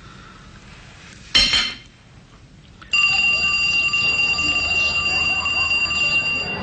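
A short, sharp bang about a second and a half in, then a school bell ringing with one steady, unchanging tone from about three seconds in.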